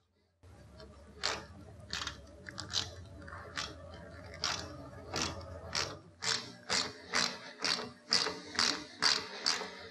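Ratcheting screwdriver clicking in short bursts, coming faster toward the end to about two a second, as a screw-in snap stud is driven into the soft-top frame's tubing. A low hum runs under the first part.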